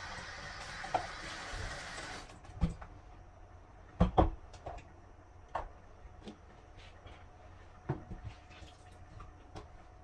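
Kitchen work sounds: a steady rushing noise cuts off about two seconds in, followed by scattered knocks and clunks of cookware and cupboards, the loudest a pair of knocks about four seconds in.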